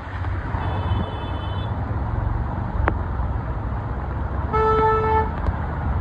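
Heavy rain hissing on a flooded road as cars drive through the water, with a steady low rumble of traffic. A car horn toots faintly near the start, then loudly for just under a second about four and a half seconds in.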